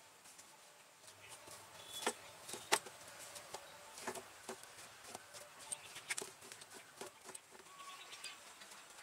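Hands kneading wheat-flour dough in a steel plate: faint, irregular sticky squishes and small knocks, the sharpest about two and three seconds in.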